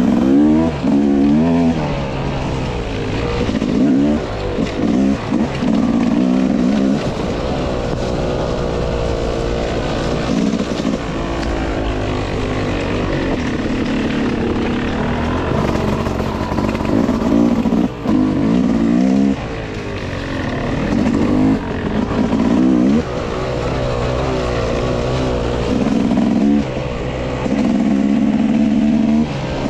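Dirt bike engine under way on a trail, revving up and easing off over and over as the throttle opens and closes.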